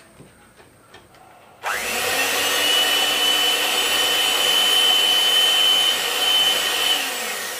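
Electric hand mixer switched on about a second and a half in, running at low speed with a steady motor whine as its beaters mix flour into creamed butter and sugar. It is switched off near the end and the whine falls as the motor spins down.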